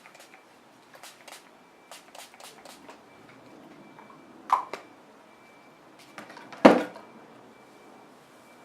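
Light clicks and taps of small objects being handled, then a sharp knock and, a couple of seconds later, a louder thud.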